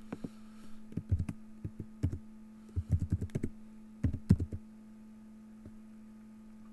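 Typing on a computer keyboard in quick bursts of keystrokes that stop about four and a half seconds in, over a steady low electrical hum.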